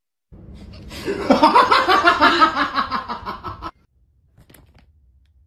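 A person laughing: a quick run of ha-ha-ha laughter that gets loud about a second in and cuts off suddenly about three and a half seconds in.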